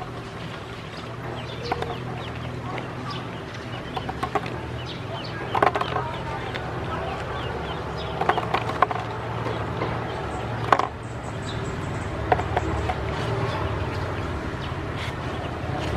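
Ducklings peeping and calling repeatedly, with a few louder sudden sounds about six, nine and eleven seconds in, over a steady low hum.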